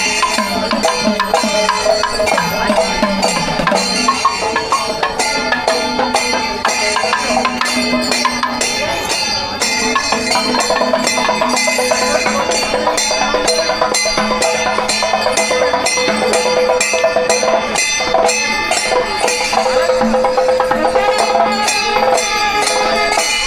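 Traditional Kerala temple music: fast, dense drumming with cymbals, under a wind instrument holding long notes that step from pitch to pitch.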